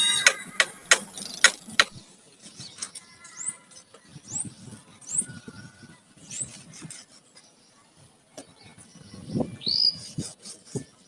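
A quick run of sharp knocks for about the first two seconds. Then short rising bird chirps, four or five of them, and one louder rising call near the end, over soft rustling and a few low thuds.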